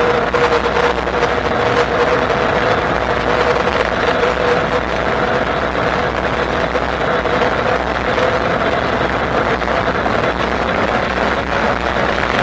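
Bafang BBSHD mid-drive e-bike motor whining steadily under power over wind and tyre rush. The whine rises a little in pitch toward the end.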